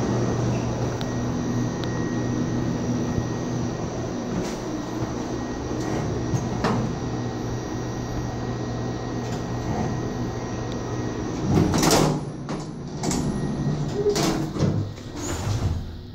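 Otis elevator car riding with a steady low hum. About twelve seconds in there is a loud rush, then several knocks and clunks as the car and its sliding doors work.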